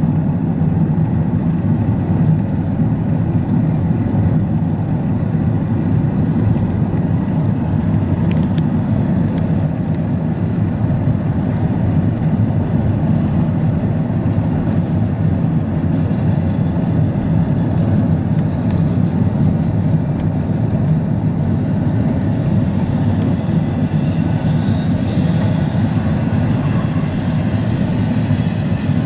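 Steady low rumble of a car driving at speed, heard from inside the car, with a double-stack intermodal freight train rolling alongside. The noise gets hissier over the last several seconds.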